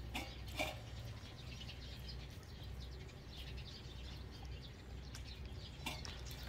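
Litter of young puppies nursing from their mother: many faint, short high squeaks and little clicks of suckling, with a couple of louder squeaks about half a second in.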